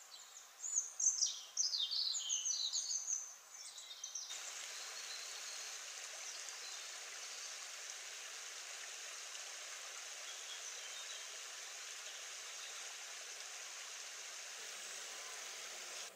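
A small songbird singing a quick run of high twittering notes for about three seconds. After that, a steady, even rushing noise of outdoor ambience, such as running water or wind, continues to the end.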